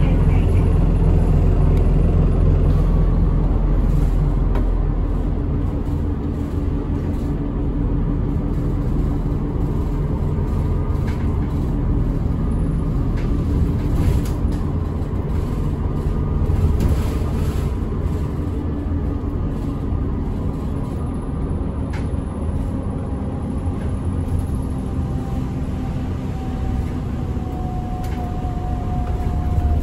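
Route bus heard from inside the cabin while driving, its engine running steadily with road noise and occasional knocks and rattles. A deep hum eases off about five seconds in, and a faint whine falls slightly in pitch near the end.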